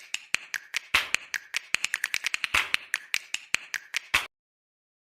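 A rapid, uneven run of sharp clicks or taps, about five or six a second, that stops abruptly a little after four seconds in, leaving dead silence.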